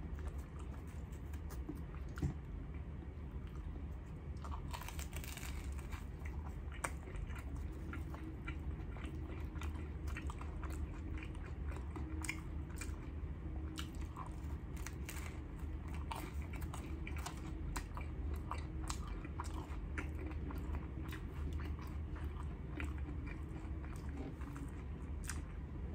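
Close-up eating sounds of a man biting and chewing a toasted chopped cheese sandwich: crunching of the crust and many small wet mouth clicks, loudest in one crunch about two seconds in, over a low steady hum.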